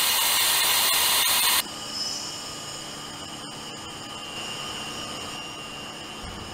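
Loud hiss of compressed air for about a second and a half as the pneumatic door control of a large industrial autoclave is worked. It cuts off sharply, and a steady machine hum with a faint high whine follows while the heavy door swings shut.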